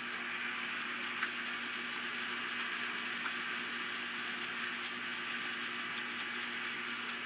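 Steady hiss with a faint, constant electrical hum underneath, and a couple of tiny faint blips about a second in and again past three seconds.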